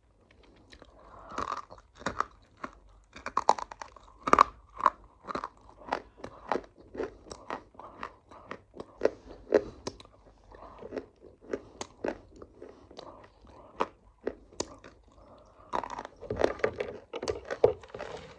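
A person chewing crunchy food close to the microphone: a quick, irregular run of crisp crunches throughout.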